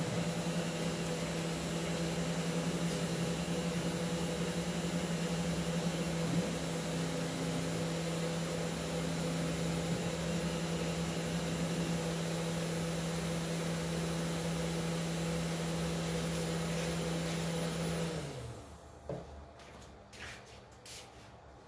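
Mini five-axis CNC machine's spindle motor running with a steady hum as it carves a wooden vase blank turning in a four-jaw chuck. It stops about eighteen seconds in, and a few faint clicks follow.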